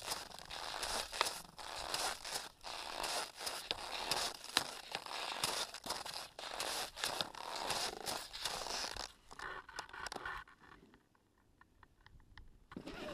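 Snow crunching and scraping against the action camera's housing, a dense crackle of small clicks. It drops to faint ticks about ten seconds in, then a short scrape of snow returns near the end.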